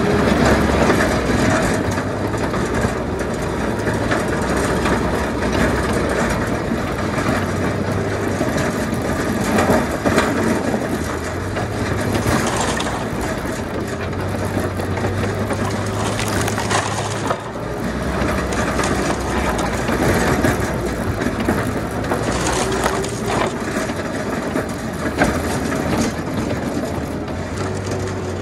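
Tractor-mounted V-plow blade scraping packed snow and ice off a road surface with a continuous grinding, crackling noise, over the steady run of the tractor's engine.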